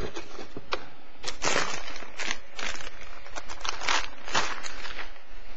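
Crinkling and rustling of a graphics card's antistatic plastic bag as it is lifted out of the box and handled, in a string of irregular crackles.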